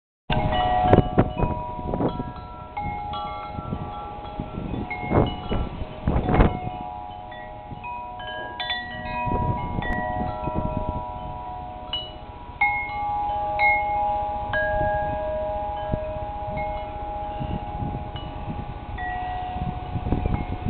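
Metal tube wind chimes ringing in the wind, their tubes struck again and again so that several clear tones overlap and die away slowly. Gusts buffet the microphone, most strongly in the first seven seconds or so.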